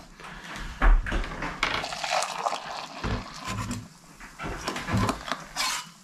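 Freshly boiled water poured from a metal camp pot into metal mugs, with repeated clinks and knocks of the metal cookware being handled.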